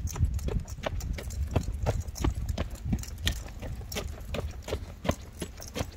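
Shoe footsteps on asphalt at an even walking pace, about three steps a second, over a steady low rumble.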